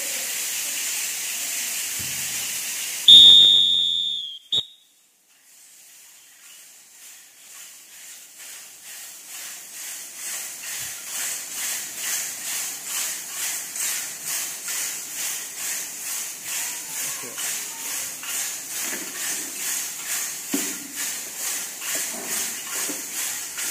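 A group of hand-held jingle instruments shaken in unison. A steady jingling hiss is broken by a sharp whistle blast about three seconds in and a moment of silence. Then the group plays rhythmic metallic jingling about twice a second, growing louder.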